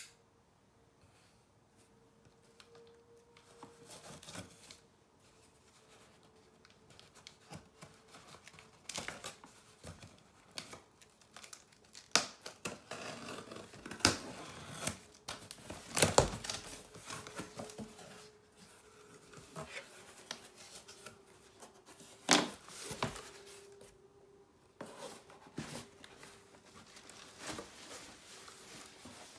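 Cardboard shipping box being opened by hand: packing tape slit and ripped, cardboard flaps and paper rustling and scraping, in irregular sharp rips with several louder tears through the middle.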